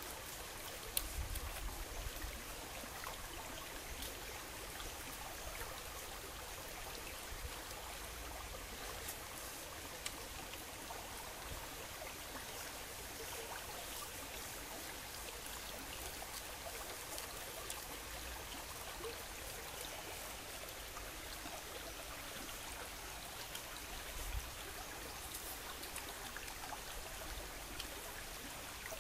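Shallow stream running over rocks, a steady rush of water, with a few faint clicks and brief low bumps.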